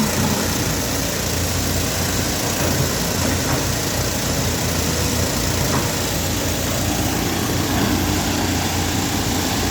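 Heavy diesel engine of construction machinery running steadily, with a low rumble and no clear change in speed.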